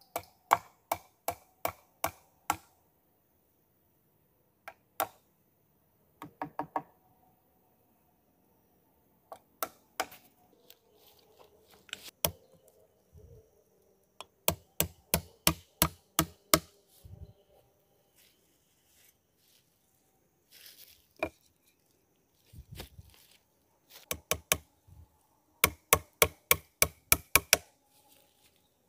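A blade chopping with quick, sharp strokes in runs of about seven or eight, roughly three a second, with pauses and a few single knocks between the runs.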